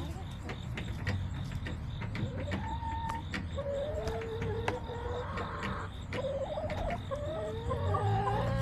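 Backyard hens making soft, drawn-out calls, short pitched notes that bend up and down, several overlapping near the end, over scattered sharp clicks.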